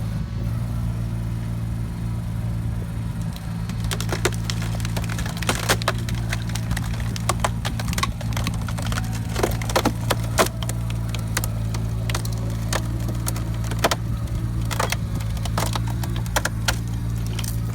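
Takeuchi TB219 mini excavator's engine running steadily while a screw-cone log splitter bores into a log, the wood cracking and splintering again and again from about four seconds in.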